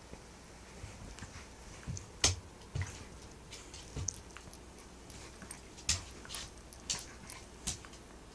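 Miniature Pinscher play-biting at a person's sleeve: irregular soft scuffles and sharp clicks, the sharpest about two seconds in.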